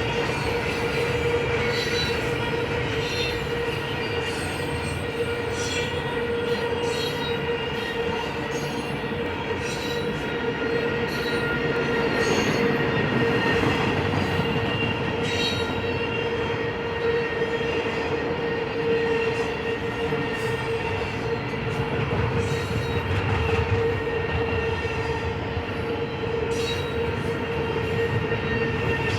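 Freight cars of a long intermodal container train rolling past, with a steady high-pitched wheel squeal over the rumble and scattered clicks of wheels over the rail.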